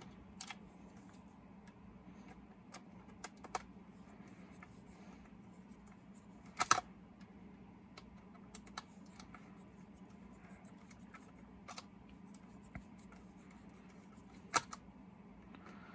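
Small scattered clicks and scrapes of a screwdriver and fingers working a screw into the chassis of an HO-scale Rivarossi Big Boy model locomotive, with two louder clicks about six and a half seconds in and near the end, over a faint steady hum.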